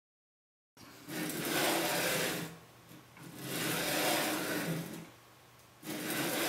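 Spindle carriage of a CNC 3018 router pushed by hand back and forth along its steel guide rods, sliding in passes of about a second and a half each. The first pass starts about a second in, the second follows, and a third starts near the end.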